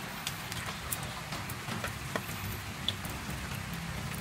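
Low steady background rumble with scattered faint ticks and clicks, and one short high chirp about three seconds in.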